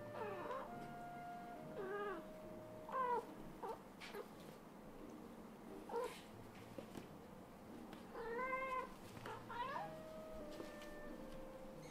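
A kitten meowing over and over in short, high calls that rise and fall in pitch, with a longer call about eight seconds in, while it wrestles with its mother.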